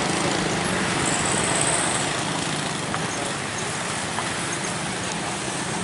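Heavy diesel truck engine running as the truck passes close by, over steady road traffic noise.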